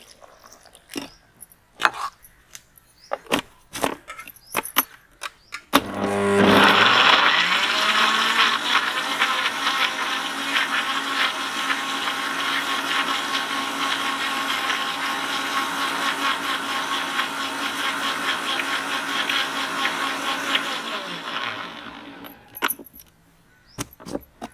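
Electric blender liquidising pineapple chunks with sugar and water. After a few knocks, the motor spins up with a rising pitch about six seconds in, runs steadily for about fifteen seconds, then winds down, followed by a few more knocks near the end.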